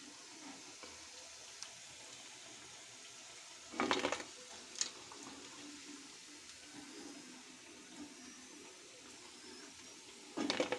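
Chicken pakodi frying in oil in a kadai, a faint steady sizzle. Two brief louder noises break in about four seconds in and near the end.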